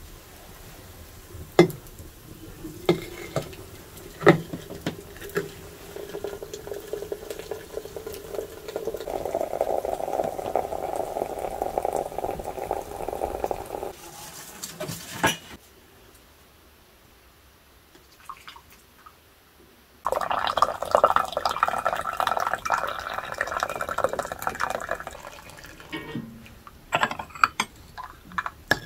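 Water poured into a glass teapot of dried chamomile, the pitch of the pour rising as the pot fills. After a short lull comes a second, higher pour, with light clinks of glass and dishes at the start and near the end.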